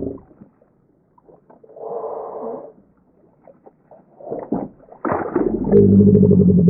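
A crab ring net full of crabs is hauled up on its rope and breaks the surface, with water splashing and streaming off the mesh about four to five seconds in. From about five seconds a loud, low, drawn-out groan is the loudest sound.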